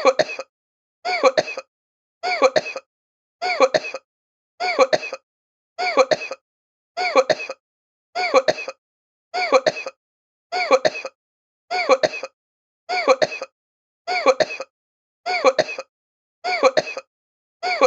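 A short human cough of two or three quick hacks, repeated identically about every 1.2 seconds with silence in between.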